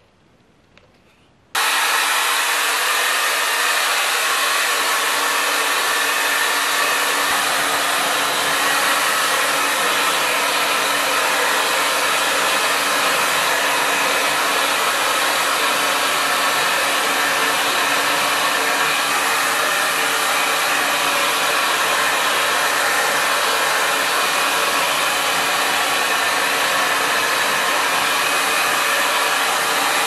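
Moser Edition hair dryer switched on about a second and a half in, then running steadily while drying long hair: an even rush of air over a steady motor hum.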